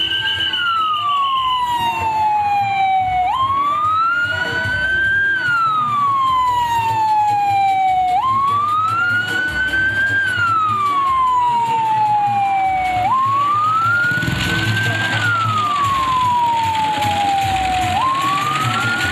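Police vehicle's electronic siren on a slow wail. Each cycle jumps up, climbs for about two seconds, then falls for about three, repeating about every five seconds. A low background rumble from the street becomes noisier in the last few seconds.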